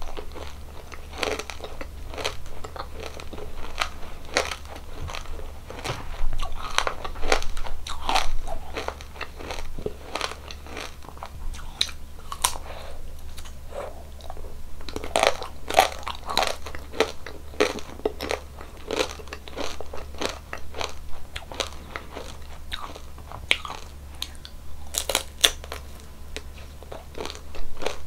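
Close-miked crunching bites and chewing of crispy frozen ice cream, a fast, irregular run of sharp cracks and crackles with louder snaps now and then.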